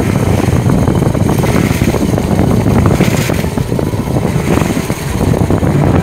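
Fishing boat's engine running steadily, loud and low-pitched, with some wind on the microphone.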